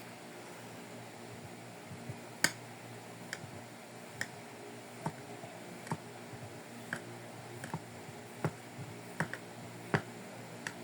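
Kinetic sand being cut with a knife: short, sharp, light clicks about once a second over a steady low hum.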